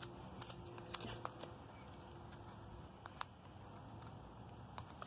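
Faint clicks and light crackling of masking tape being handled and pressed down onto a metal sledgehammer head, with a cluster of small clicks in the first second or so and a few scattered ones later.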